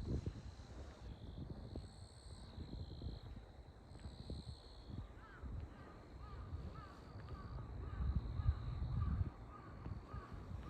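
A bird gives a rapid series of short calls, starting about halfway through. Under it runs a low rumble, loudest about eight to nine seconds in.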